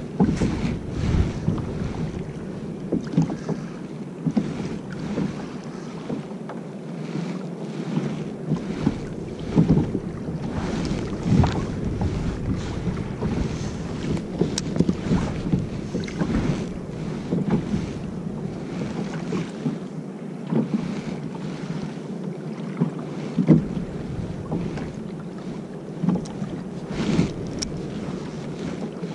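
Sea water slapping and splashing against a fishing kayak's hull in irregular splashes, with wind rumbling on the microphone.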